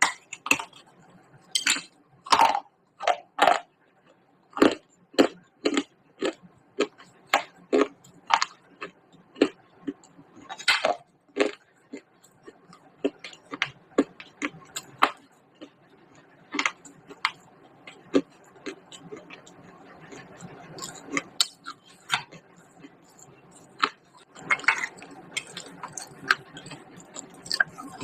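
Close crunching of baked clay pot pieces being bitten and chewed: an irregular run of sharp, dry cracks, with stretches of softer grinding about three-quarters through.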